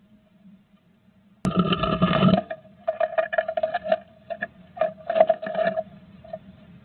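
A great tit moving about inside a wooden nest box, scratching and rustling in the moss of its half-built nest: a sharp click about a second and a half in, then a dense scratchy burst and scattered crackles, with a faint steady tone underneath. Heard through the box camera's narrow-band microphone, which sounds like a telephone.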